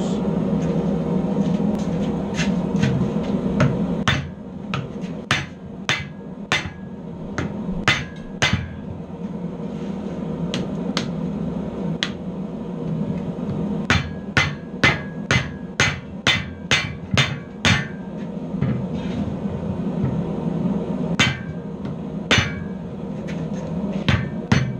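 Hand hammer striking a hot railroad screw clamped in a bench vise. Sharp blows begin about four seconds in and come in runs of roughly two a second, with pauses between the runs. A steady low hum runs underneath.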